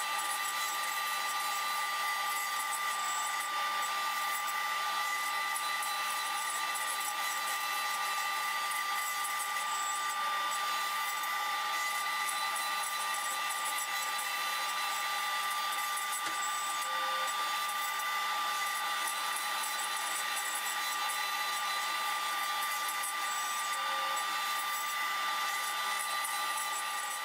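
CNC router spindle running steadily with a high whine over a hiss as a 1/8-inch ball-nose bit makes the 3D finishing pass over a walnut blank, carving the hollow of a leaf-shaped bowl.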